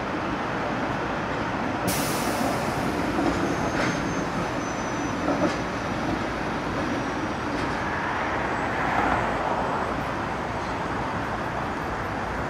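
Melbourne Z2-class tram running slowly towards the listener on street track, wheels and motors running steadily. A sharp hiss of air starts about two seconds in and dies away over about a second.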